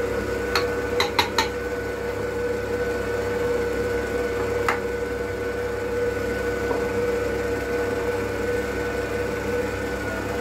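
Oster stand mixer's motor running at a steady low to medium-low speed, its flat beater working a thick, dense batter. A few sharp clicks in the first second and a half, and one more near the middle, as a small glass dish knocks against the steel bowl while it is emptied.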